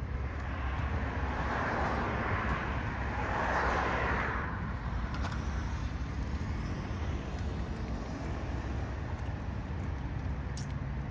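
A car driving past close by, its tyre and engine noise swelling to a peak and fading away over a few seconds, over a steady low traffic rumble.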